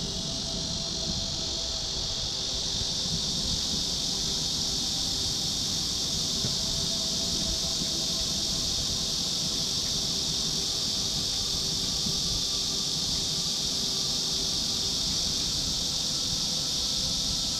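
A steady, unbroken high-pitched insect chorus that does not change, over a low rumble.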